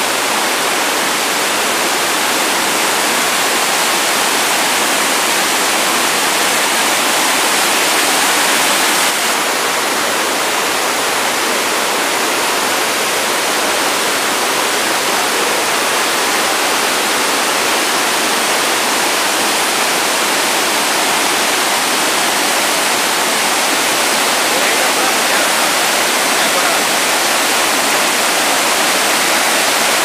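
Loud, steady rush of a waterfall: white water pouring and churning over rocks, with the high hiss easing slightly about nine seconds in.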